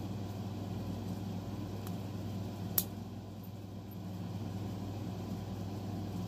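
Steady low background hum, with plastic K'nex pieces clicking together by hand: a faint click just before two seconds in and a sharper, louder click near three seconds.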